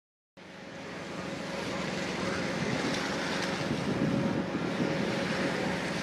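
A steady low machine hum under a rushing, wind-like noise, starting about half a second in, swelling over the next couple of seconds and then holding level.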